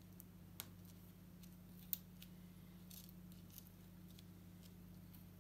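Faint, scattered ticks and scratches of hands and a toothpick working on an adhesive sand-painting card, with the sharpest tick about two seconds in, over a steady low electrical hum.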